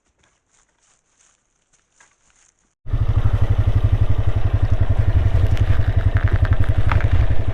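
A few faint clicks over near silence, then a small off-road vehicle's engine cuts in suddenly about three seconds in and runs steadily with a low, even rumble.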